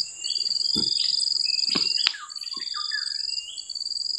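Insects trilling steadily in a high, pulsing tone with short breaks, with birds chirping over it. A few sharp clicks come about one and two seconds in.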